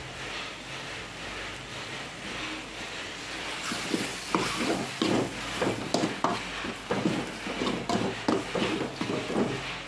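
Metal spoon stirring a capsicum and egg fry in an aluminium kadai, scraping and knocking against the pan in quick irregular strokes that start about four seconds in, over a low steady sizzle.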